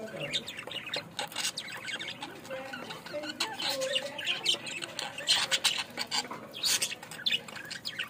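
A flock of caged budgerigars chattering: a busy, overlapping mix of short chirps, warbles and harsh calls.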